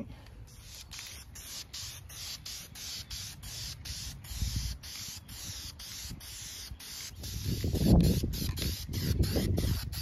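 Aerosol spray paint can hissing as paint is sprayed onto the condenser's wire grille and fan guard. A louder low rumble joins in during the last few seconds.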